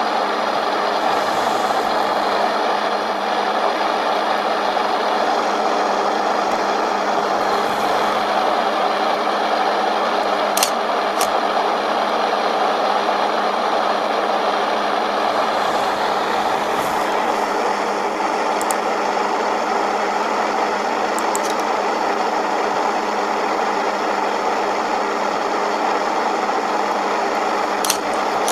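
Steady, loud static hiss of heavily amplified background noise, with a few faint short clicks.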